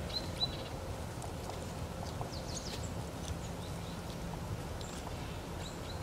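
Great tit pecking at seeds in a sunflower head, a series of light irregular taps, with a few short high bird chirps near the start and again near the end over a steady low background rumble.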